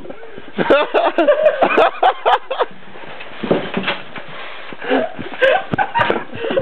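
Indistinct voices of several people calling out and chattering in short spells with pauses between.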